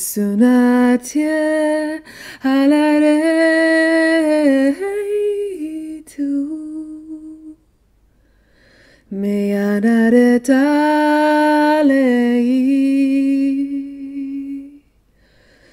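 A woman's voice singing unaccompanied, without recognisable words, in long held notes that glide from pitch to pitch. Two phrases, with a pause of about a second and a half near the middle.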